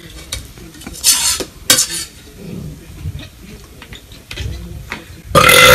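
Metal ladle scraping and clinking against a plate while scooping food, with two louder scrapes a little after a second in. A sudden loud vocal sound breaks in just before the end.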